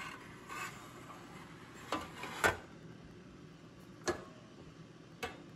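About four light clicks and knocks of a metal grease pan being handled and slid back into place under a Philips Smoke-Less Indoor Grill's grate. The loudest knock comes about two and a half seconds in.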